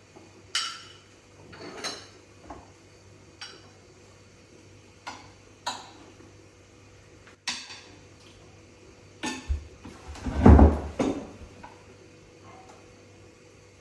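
Dishes and cutlery clinking now and then as they are handled, with a louder clatter and a low thump about ten seconds in.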